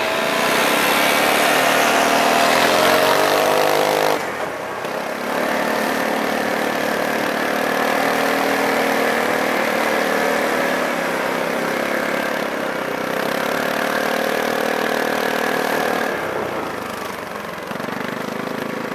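Motorcycle engines running and accelerating, the pitch climbing for about four seconds. After an abrupt break they run steadily with small rises in pitch, then fall away about three seconds before the end.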